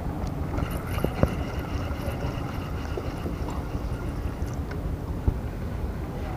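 Steady low rumble of a boat motor running on the water, with a couple of faint clicks.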